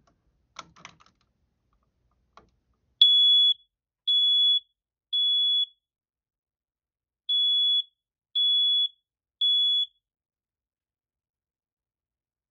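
A few light clicks as the test button is pressed, then a First Alert smoke alarm's horn sounds two rounds of three loud, high-pitched beeps with a pause between them and stops. This is the temporal-three pattern a smoke alarm gives when its self-test works.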